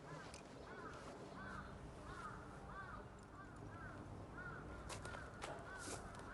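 A bird calling over and over in the background, short arched calls about twice a second, with a few sharp clicks near the end.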